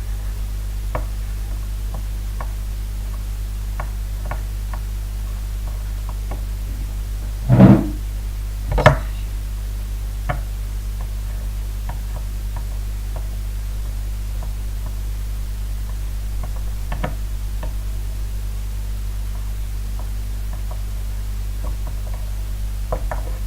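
Steady low electrical hum with scattered light clicks and taps, and two louder knocks close together about eight seconds in.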